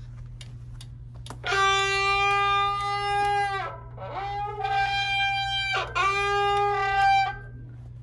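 The rear disc brake of a Specialized road bike squealing as the spinning wheel is braked: three long, steady, high-pitched squeals, the first starting about a second and a half in. The mechanic puts the squeal down to the rotor and pads being contaminated, with oil picked up from the road.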